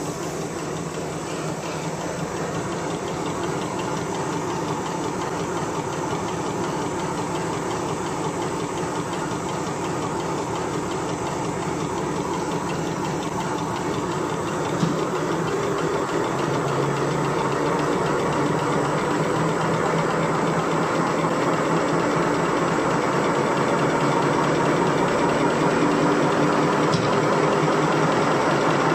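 Napkin paper folding machine running: a steady, dense mechanical hum and rattle that grows gradually louder as the motor speed is turned up on its control panel.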